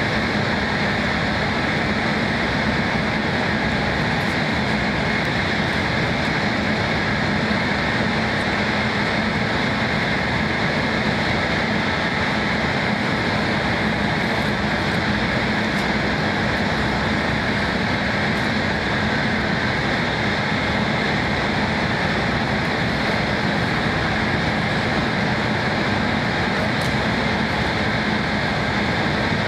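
Steady mechanical hum and rushing noise, even in level, with a low hum and fainter higher whines running under it.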